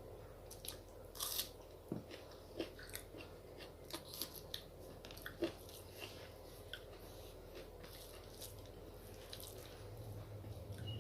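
A person chewing and biting food close to the microphone, with a run of short, sharp crunches and clicks through the first half that thin out and grow fainter later.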